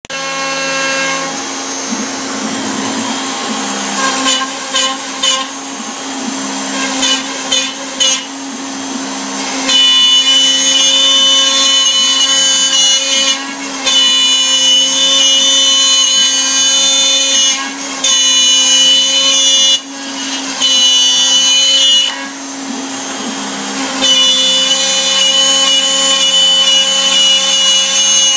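CNC router spindle running with a steady pitched whine while its bit cuts wood. It starts with short intermittent bursts, then turns into long loud cutting passes of a few seconds each, with brief drops in between.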